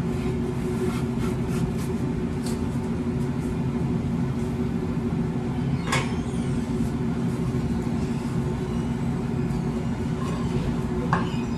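Steady machine hum of commercial kitchen equipment running, with a few light clicks and knocks and one sharper click about six seconds in.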